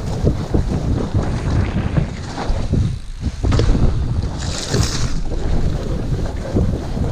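Wind buffeting an action camera's microphone over the rumble and rattle of a mountain bike riding fast down a rough, muddy dirt trail, with many small knocks from the bike over bumps. A brief hiss comes a little past halfway.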